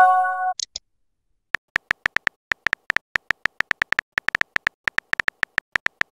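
A short chat-app message chime at the start, a chord of a few steady tones with a brief high blip after it, as a new text arrives. After a short pause, rapid keyboard-tap clicks of a phone-style messaging app, about five a second, as a reply is typed.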